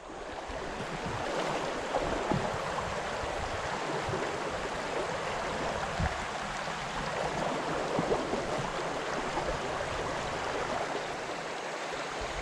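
Shallow rocky creek running fast over stones in pocket water: a steady rush of flowing water that swells up over the first second, with a few faint knocks.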